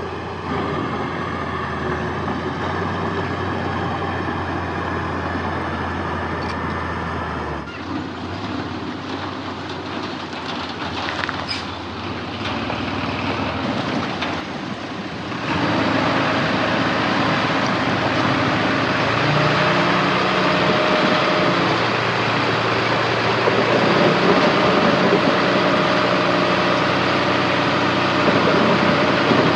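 Diesel engine of heavy earthmoving machinery, such as a bulldozer or dump truck, running under work. It changes about a quarter of the way in and gets louder from about halfway.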